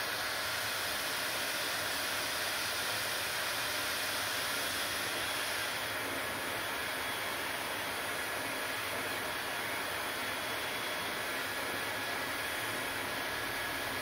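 Handheld hair dryer running steadily on high airflow, a constant rush of blown air with a faint high whine from its motor.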